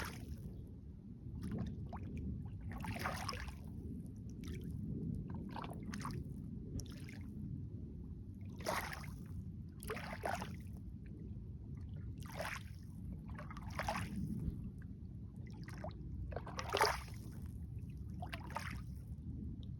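Lake water lapping and splashing in short, irregular splashes every second or two, over a steady low rumble.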